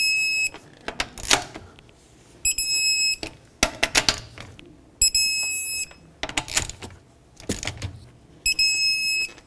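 Electronic torque wrench beeping as each lug bolt reaches its set torque of 100 foot-pounds: a steady high beep of just under a second, repeating every two to three seconds. Between the beeps come short clanks and clicks as the socket is moved to the next bolt.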